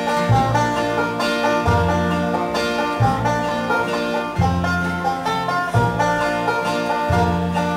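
Acoustic string band playing an instrumental passage in country-bluegrass style: banjo picking over acoustic guitar, with low upright bass notes about once a second. No singing.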